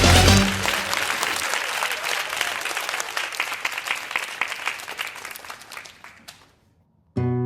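Applause: a dense patter of clapping that fades away steadily over about six seconds to silence. Acoustic guitar music starts just before the end.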